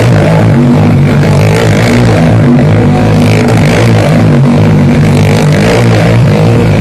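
Small motorcycle engine running very loud and steady at a constant throttle while circling the wall of a dirt pit.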